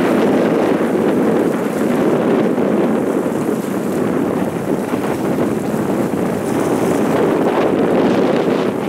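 Steady wind blowing across the microphone: an even rushing noise with no distinct tones and no let-up.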